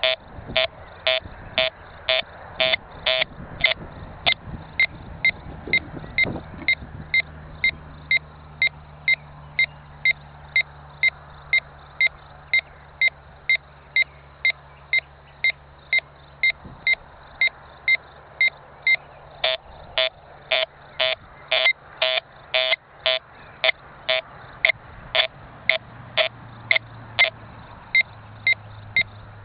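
Golden Mask GM3 metal detector beeping steadily at about two high-pitched beeps a second. For a stretch in the second half, and briefly at the start, the beeps get louder and take on a lower second tone.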